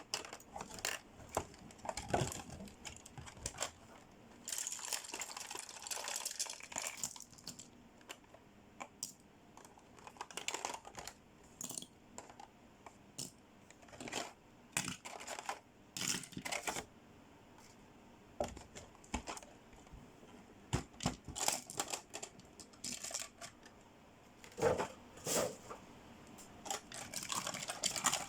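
Small plastic toy accessories and their packaging being handled: irregular clicks and taps, with stretches of crinkling and rustling.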